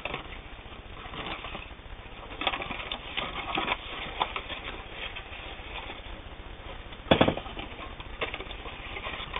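Paper rustling and crackling as a small sewing machine guide booklet is handled and its pages flipped, busiest a few seconds in. A single short voiced sound, the loudest thing here, comes about seven seconds in.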